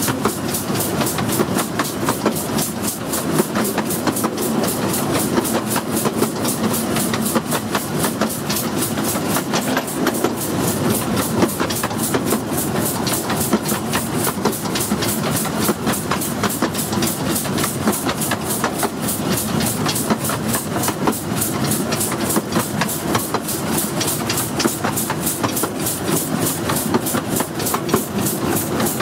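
15-inch gauge miniature steam locomotive and train running steadily along the line, heard from close behind the engine. The wheels rumble and clatter on the rails, with a fast, even rhythm of beats throughout.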